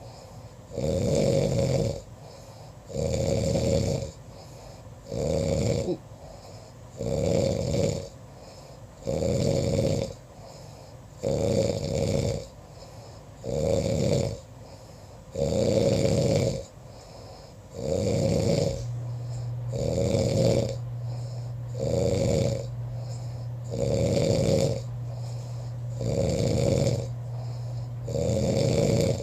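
A man snoring in regular, loud snores about every two seconds. About two-thirds of the way through, a steady low hum starts and runs on under the snores.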